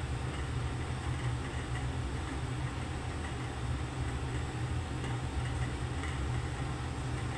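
Fried rice being stirred and turned in a wok with a wooden spatula, faint scraping and tossing sounds over a steady low hum.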